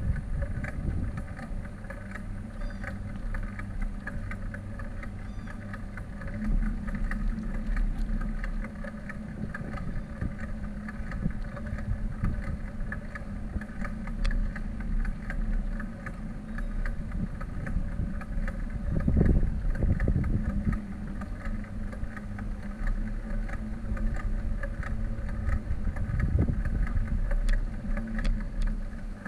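Riding noise of a bicycle along paved and brick walkways: a steady low rumble with many small rattles and clicks. It swells briefly about two-thirds of the way through and again near the end.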